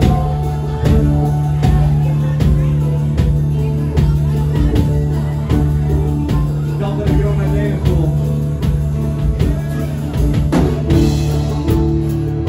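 Live country-rock band playing: a drum kit keeps a steady beat under a sustained low drone, with electric guitars, keyboard and mandolin.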